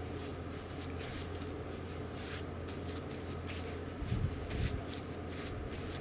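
Hands handling and rubbing small fishing-reel parts while cleaning them: a scatter of short scraping and wiping strokes over a steady low hum, with a couple of soft bumps about four seconds in.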